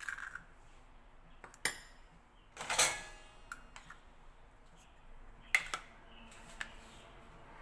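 A metal utensil clinking against a ceramic bowl and countertop: a few sharp clinks, with one longer ringing clatter about three seconds in.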